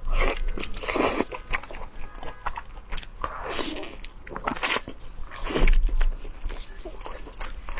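A person biting and chewing food close to the microphone, in a run of uneven wet crunches and smacks.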